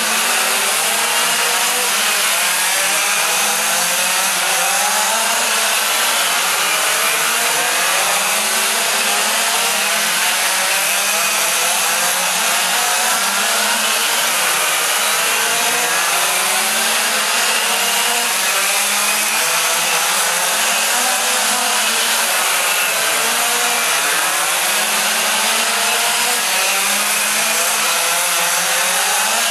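Several quarter-scale gas RC race cars' small two-stroke engines buzzing continuously around the track, their overlapping pitches rising and falling as they accelerate and lift off.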